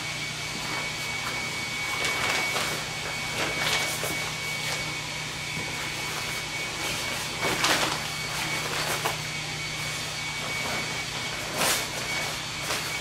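Nylon fabric of a deflated inflatable sleeping pad rustling and crinkling as hands press it flat to squeeze out the air. There are several louder rustles, over a steady background hum.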